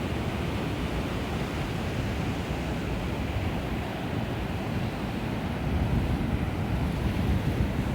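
Sea surf breaking and washing on the beach, a steady rushing roar that swells a little near the end, with wind buffeting the microphone.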